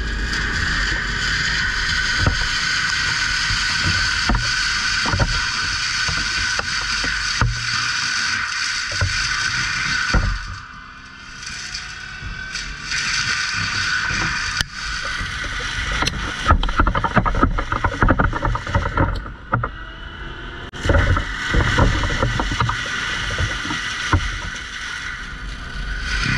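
Caterpillar 299D3 compact track loader working: its diesel engine runs steadily under load with a high whine over it. The sound drops off for about two seconds about ten seconds in, then comes back with bursts of knocking and clatter through the second half.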